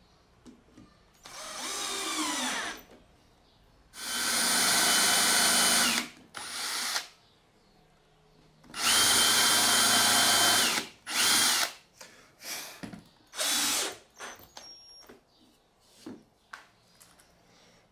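Cordless drill fitted with a homemade countersink drill bit boring countersunk pilot holes into a wooden block. It makes two main runs of about two seconds each, the motor pitch sliding down as each one stops, with a few shorter trigger blips around them.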